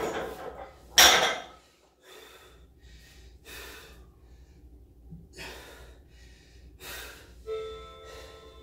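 Barbell with bumper plates dropped onto rubber gym flooring: a loud crash about a second in. Then heavy, spaced breaths of the lifter, winded after the snatches.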